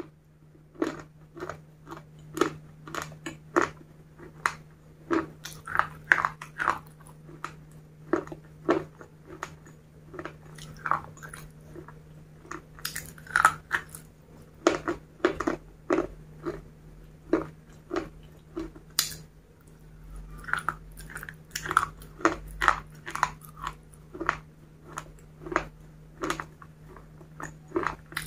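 Close-miked mouth chewing and biting, with crisp crunches coming in an irregular run, a few to the second, with short pauses. A steady low electrical hum sits underneath throughout.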